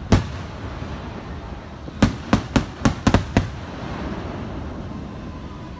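Aerial firework shells bursting overhead: one sharp bang at the start, then about seven bangs in quick succession around two to three and a half seconds in.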